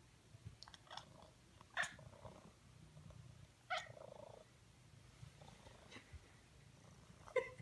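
Grey domestic cat chittering: several short, sharp chattering calls a couple of seconds apart, made with its mouth open while it stares up at the wall, the kind of chatter a cat makes at prey it sees but cannot reach.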